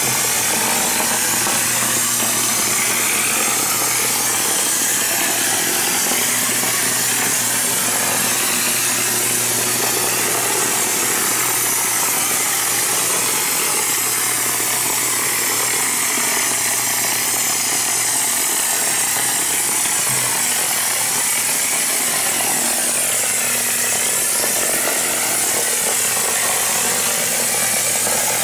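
A compressed-air premix spray gun spraying cement premix into a mould: a steady loud hiss of air and spray, with a steady low hum underneath.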